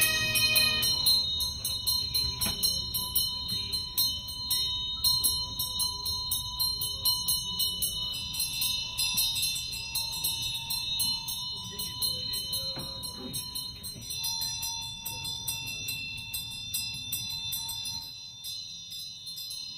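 Bells jingling in a fast, even rhythm over sustained high ringing tones, growing fainter near the end.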